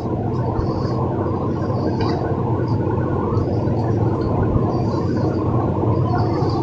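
Spoon stirring a stiff flour-and-ghee dough mixture in a stainless steel bowl, with repeated scraping strokes about once a second over a steady low hum.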